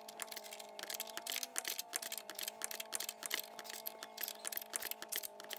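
Light, irregular metallic clicks and taps of an open-end wrench and a Torx-bit counter-hold working a tie rod end nut, over a faint steady drone of several held tones.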